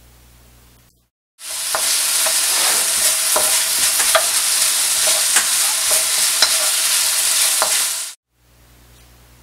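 Chopped onion sizzling as it fries in a hot wok, stirred with a wooden spatula that gives scattered clicks and scrapes against the pan. Recorded through a Nikon D3200 camera's built-in microphone. The sizzle starts about a second and a half in and cuts off suddenly near the end, with only faint hiss before and after.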